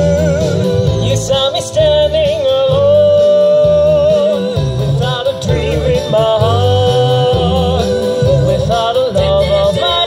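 Vocal group singing in harmony through a PA system, several voices held together over a pulsing bass line.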